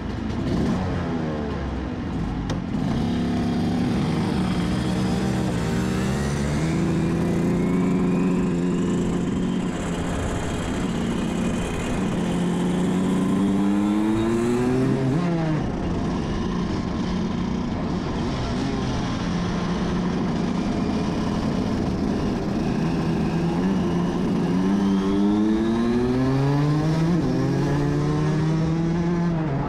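Rotax DD2 kart's 125 cc two-stroke single-cylinder engine heard onboard at racing speed. Its pitch climbs steadily as it revs out and drops off sharply, once around the middle and again near the end.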